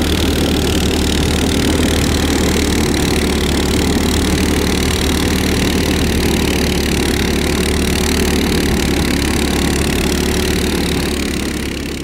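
Small engine of a motorized snow tow running steadily under way over a snowy track, fading out at the end.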